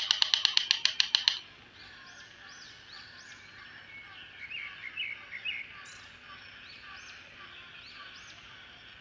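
A loud, rapid pulsing rattle, about nine pulses a second, cuts off about a second and a half in. It leaves faint outdoor background with birds calling repeatedly and chirping, busiest about five seconds in.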